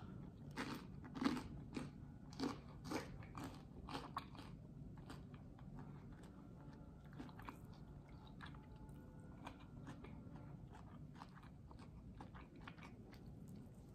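Close-miked chewing of crunchy food: irregular crunches and bites, louder in the first few seconds, then softer chewing.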